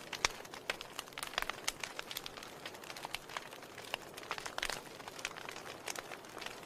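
Burning wood logs crackling in a fireplace: irregular sharp pops and snaps, several a second, over a soft steady hiss.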